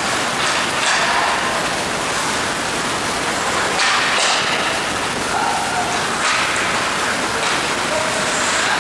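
Ice hockey play on an indoor rink: a steady hiss of skates carving the ice, with a few louder scrapes and short distant shouts.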